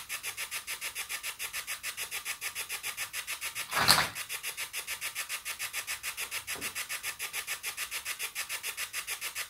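Spirit box radio scanner sweeping through stations: fast, even pulses of static, about eight a second, with a brief louder burst of radio sound about four seconds in.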